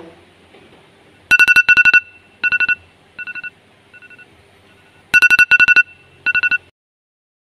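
Tablet alarm going off: clusters of rapid, high electronic beeps that dip quieter in the middle, come back loud, then stop shortly before the end.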